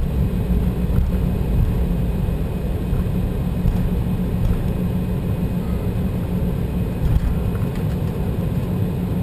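Steady low rumble inside the cabin of an Embraer 190 jet as it taxis, with its two GE CF34-10E turbofans running.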